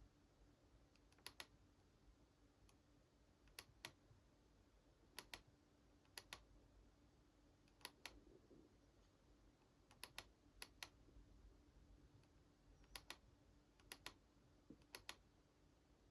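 Faint computer mouse clicks, mostly in quick pairs, coming every second or two as a slideshow is advanced, over a faint steady hum.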